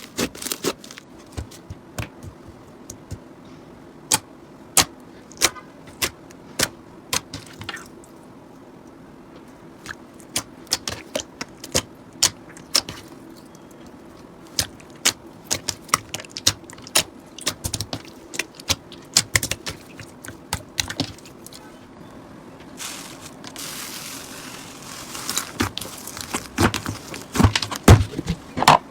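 Slime being squeezed, pressed and stretched by hand, giving irregular sharp clicks and pops, with a softer crackly rustle for a couple of seconds near the end.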